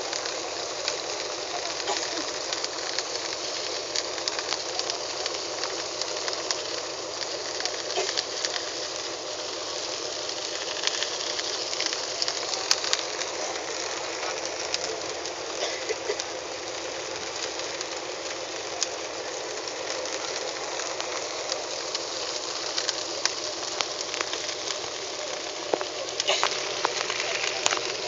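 Steady noise of a boat under way: engine, wind and water run together, with many small clicks.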